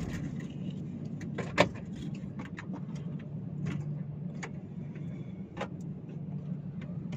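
Scattered clicks, knocks and rustles from someone handling things inside a parked car, over a steady low hum. One sharper click comes about one and a half seconds in.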